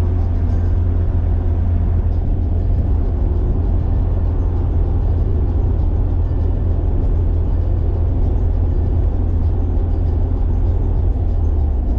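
A carburetted Nissan Silvia cruising steadily on an expressway, heard from inside the cabin: an even, low engine and road drone with no changes in pitch.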